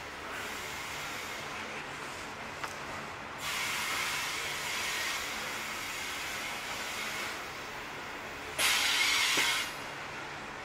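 Loaded coal hopper wagons rolling slowly past on the rails, a steady rumble and hiss. It swells a few seconds in, and a louder burst of hiss lasting about a second comes near the end.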